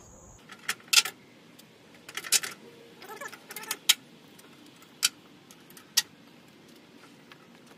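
Several sharp plastic clicks and snaps at irregular intervals as plastic push-in clips (Christmas-tree fasteners) are pressed through the AVS bug shield into the mounting holes along the hood's front lip.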